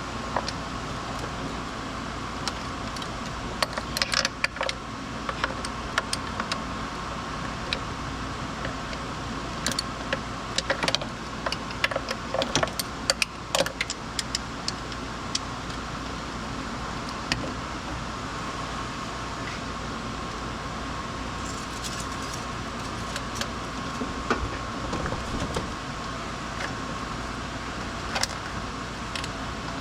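Light metallic clinks and rattles of tools or small metal parts being handled, coming in scattered clusters, over a steady mechanical hum with a fixed mid-pitched tone.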